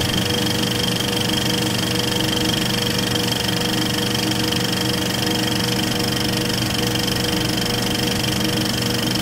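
Steady, fast mechanical clatter with a constant hum, even and unchanging throughout.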